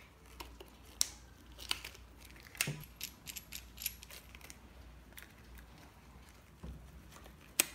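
Small metal hardware handled and threaded by hand: a nut and washers on a short bolt pushed through a rubber balloon diaphragm, giving a few sharp, irregularly spaced metal clicks with faint rubbing between them.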